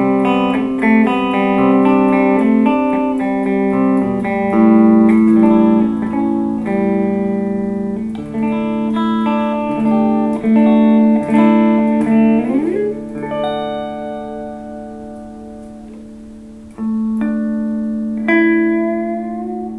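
2008 Epiphone Sheraton II semi-hollow electric guitar played clean through a Fender Blues Junior valve amp: picked chords and notes, a slide up the neck about twelve seconds in, then notes left to ring and fade before two last chords are struck.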